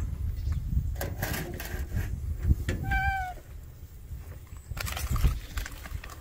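Wind rumbling on the microphone, with light rustling, and one short, clear, steady-pitched call about three seconds in.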